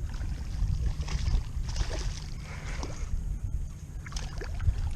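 Wind rumbling on the microphone over light sloshing and splashing of water, with a few faint ticks.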